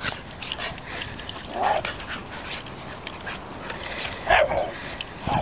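Dogs play-wrestling: scuffling with scattered short clicks, and two short vocal noises from the dogs, one about a second and a half in and a louder one near the end.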